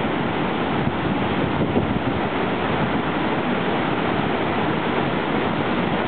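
Montezuma waterfall pouring into its plunge pool: a steady, loud rush of falling and churning water.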